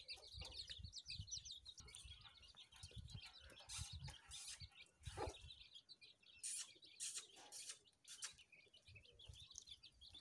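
Small birds chirping faintly, with quick chirps coming thickest in the first couple of seconds and scattered after, over a low rumble.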